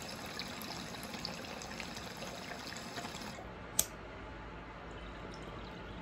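Water trickling and ticking in a glass beaker bong. A little before four seconds in a single sharp lighter click, then the bong water bubbling softly as smoke is drawn through it.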